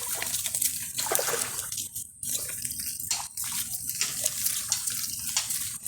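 Water sloshing and churning around a spearfisher's camera, with many small crackling clicks throughout and a brief drop in level about two seconds in.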